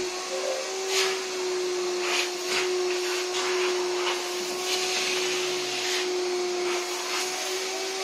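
Canister vacuum cleaner running with a steady whine, its hose and crevice nozzle sucking along the seams of a fabric sofa. The hiss of the air surges briefly several times as the nozzle moves against the upholstery.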